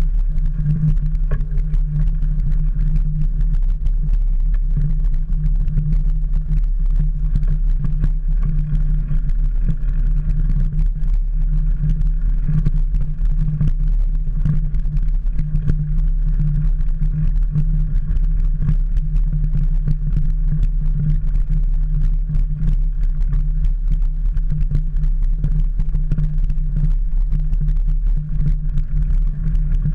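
Mountain bike rolling over a rough dirt and gravel track, heard through a camera mounted on its handlebars: a steady low rumble with many small knocks and rattles from the bumps.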